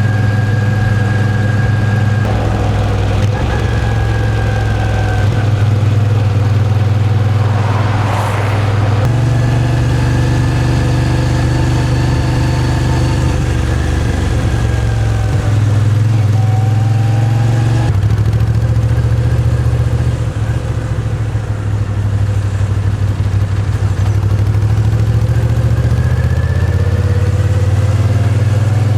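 Moto Guzzi V7's air-cooled transverse V-twin running under way, its pitch stepping and gliding up and down several times as the revs change. A short rush of noise about eight seconds in.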